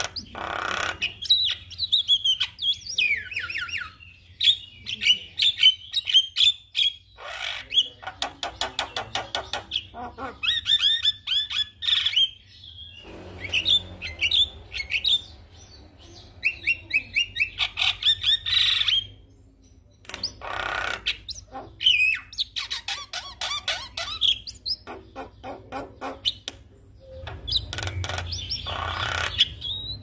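Javan myna singing in rapid phrases: clicking rattles, harsh squawks and short whistled notes that slide up and down, with a few brief pauses between phrases.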